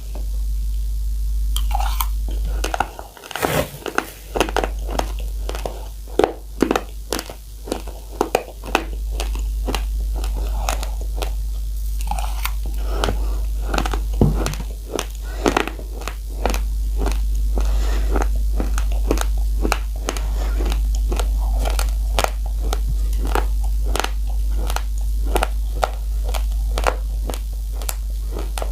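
Close-miked chewing of dry, uncooked rice: a long run of sharp, hard crunches as the grains are bitten and ground between the teeth, over a steady low hum.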